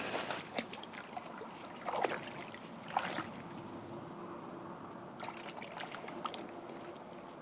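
Lake water splashing and dripping, with scattered knocks and rustles from handling; two louder splashes come about two and three seconds in, and a faint steady hum runs through the second half.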